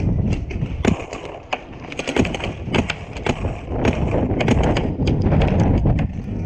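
Paintball markers firing in scattered, irregular pops, several in quick succession in the middle, over a steady low rumble.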